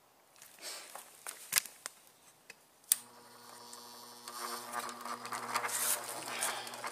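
A few clicks and knocks of handling, then a sharp click about three seconds in as a small bench grinder's electric motor switches on and runs with a steady hum. The hum grows louder and noisier about a second later, as the grinder's speed knob is turned.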